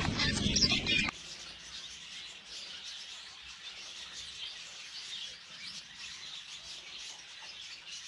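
A colony of caged zebra finches chirping. A loud, busy stretch of calls cuts off abruptly about a second in, leaving softer, continuous high chirping.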